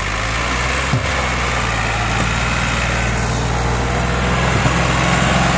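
Massey Ferguson 260 tractor's four-cylinder diesel engine running hard, pulling a disc harrow through loose soil: a steady low drone that grows gradually louder.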